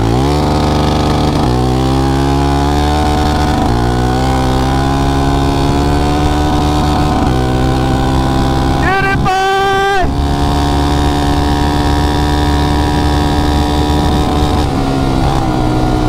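Suzuki LTZ400 ATV's liquid-cooled single-cylinder four-stroke engine under hard acceleration, pulling up through the gears. Its pitch climbs steadily in each gear and drops at each of several upshifts.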